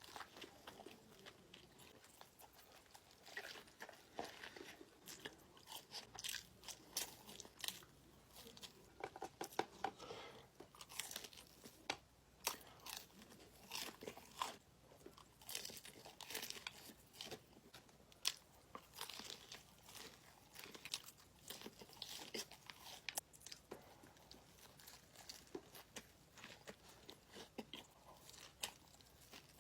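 Close-miked biting and chewing of crispy fried chicken tenders: soft, irregular crunches of the breading throughout.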